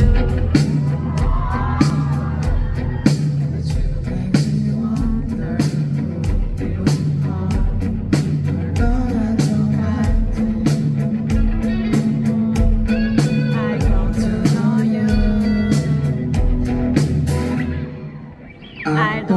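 Live rock band playing a song with drums, bass, guitar and a male lead singer, heard through a concert venue's loudspeakers during a sound check. Near the end the band drops back briefly before coming in again.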